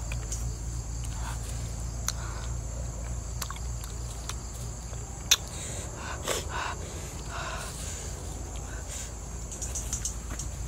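A person eating with their hands: mouth sounds of chewing and short breathy gasps, with a few small clicks and one sharp click about five seconds in. Behind this is a steady high-pitched drone of insects and a low hum.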